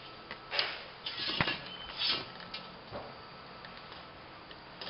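Handling noises from a mesh banner and an aluminum rod: a few short rustling, scraping bursts in the first three seconds, then only a low background hum.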